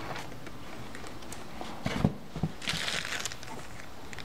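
Packing being handled while saw parts are set down on the foam tray: a few light knocks about two seconds in, followed by a short rustle of packaging.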